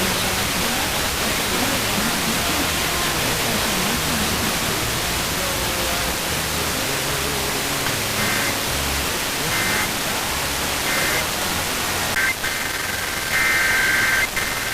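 Steady radio static hiss from a weak broadcast signal. From about eight seconds in, short bursts of EAS data tones cut through the hiss, three of them about a second apart, then stronger, longer bursts near the end: the digital header that opens an Emergency Alert System test.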